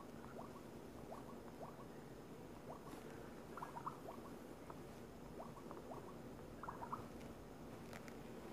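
Faint, irregular clicks of typing on a smartphone's on-screen keyboard, a few taps a second, over a low steady hum.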